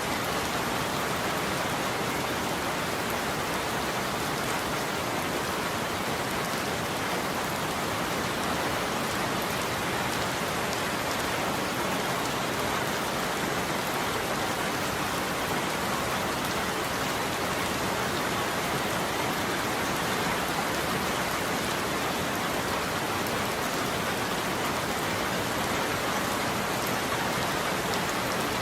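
Steady heavy rain falling on a surface, a dense even hiss of drops with no let-up and no thunder.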